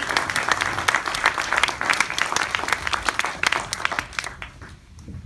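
Audience and people on stage applauding, the clapping thinning out and dying away about four seconds in.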